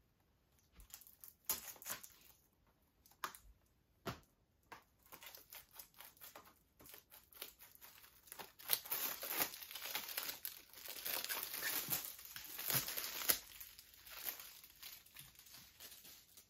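Plastic shrink-wrap being torn and peeled off a Blu-ray case. Scattered clicks and small crackles come first, then several seconds of dense crinkling in the second half.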